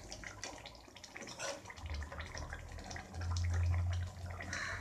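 Thick egg kuruma gravy simmering in a steel pot, with a scatter of small bubbling pops as it reduces down to a gravy. A low hum swells briefly about three seconds in.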